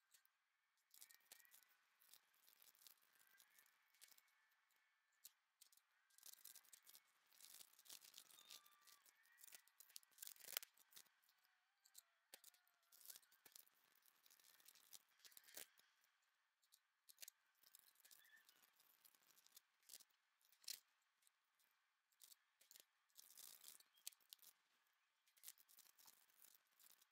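Faint crinkling of small plastic zip bags and light rattling and clicking of resin diamond-painting drills being handled over a plastic storage case, in scattered short bursts with a few sharper ticks.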